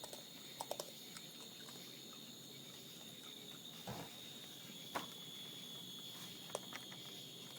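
Crickets chirring steadily, with a few faint, sharp clicks scattered through.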